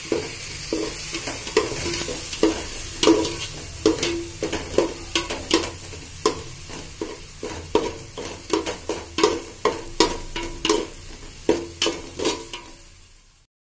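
A perforated spatula scrapes and knocks against a metal pot as curd is stirred into a sizzling masala. The strokes come irregularly, about one or two a second, each ringing briefly over a steady frying hiss, and the sound fades out near the end.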